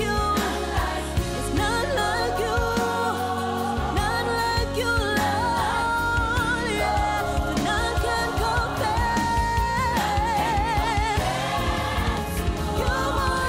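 A female lead vocalist sings a gospel worship song with a vocal group behind her and band accompaniment, with held notes sung with vibrato.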